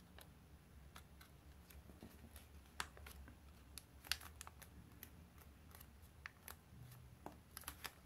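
Faint, irregular crinkles and ticks of origami paper being folded and creased by hand, with a couple of louder crackles about three and four seconds in and a quick run of them near the end.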